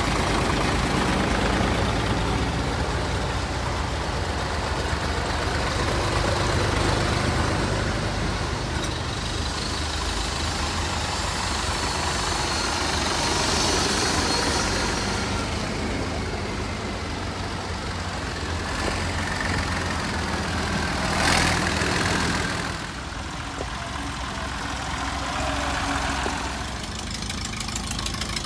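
Vintage farm tractors driving slowly past one after another, their engines running steadily at low revs. A brief sharp noise stands out about two-thirds of the way through.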